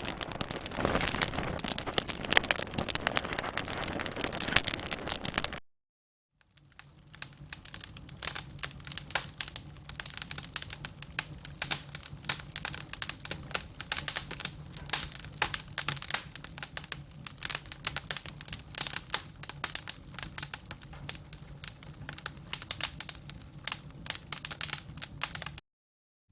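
Burning fire crackling with a dense hiss of pops for about five and a half seconds, then cutting out. After a short silence comes a quieter fire with sharp, rapid crackles and pops over a low steady hum.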